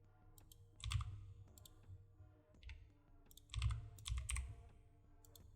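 Computer keyboard keys being pressed: a single keystroke about a second in, then a short run of keystrokes near the middle to later part, each a sharp click with a low thud, over a faint steady hum.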